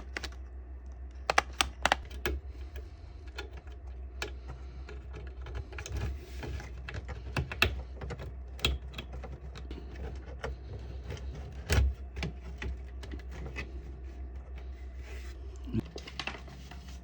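Irregular light clicks and taps of hands working a self-adhesive mesh wall-repair patch onto a plastic litter-box rim, over a low steady hum.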